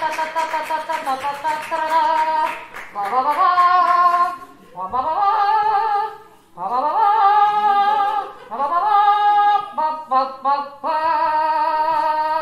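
A woman's voice carrying a wordless melody through a horn held to her mouth, in several phrases of held notes that each slide up into pitch, with short breaks between phrases.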